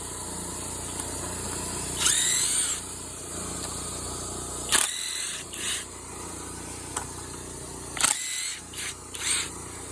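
Flex compact impact driver's motor run free in short trigger pulls, whining up in pitch and winding down each time. There is one longer burst about two seconds in, then a string of shorter blips.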